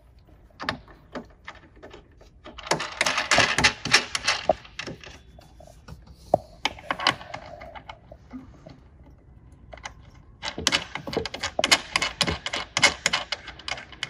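Clicking and rattling of metal screws and chair frame parts handled by hand while the base screws are put back. There are scattered clicks, with two runs of rapid clatter, one about three seconds in and a longer one from about ten seconds in.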